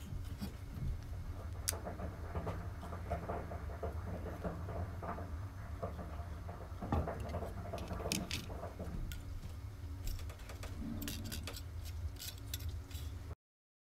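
Scattered light clicks, taps and rustles from handling the circuit board of a 1975 Casio Personal Mini calculator and its metal keypad contact sheet, over a steady low hum. The clicks come more thickly about seven to nine seconds in and again near the end.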